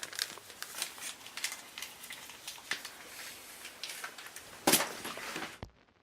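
Irregular clicking and crackling, with one louder crack near the end, then cutting off suddenly.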